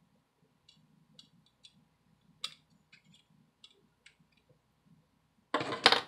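Faint clicks and ticks of a small precision screwdriver turning out a tiny screw from a smartphone's motherboard, with one sharper click about two and a half seconds in. A louder clatter comes near the end.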